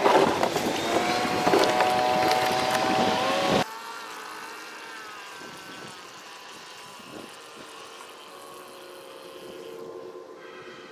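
Small 3-horsepower Evinrude outboard motor running, with a few knocks at first. About four seconds in it turns suddenly much quieter, a faint steady engine hum heard across the water as the dinghy moves away.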